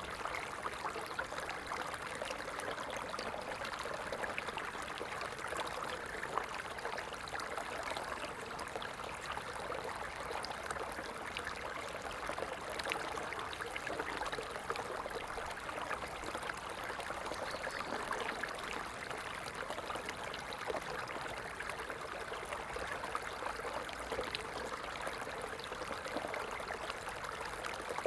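A small stream flowing, a steady babble of water with fine splashing ticks.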